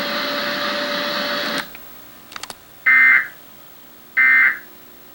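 Steady hiss with a faint hum that cuts off about a second and a half in, a few soft clicks, then two short bursts of Emergency Alert System end-of-message data tones, each about half a second long, marking the close of the alert test.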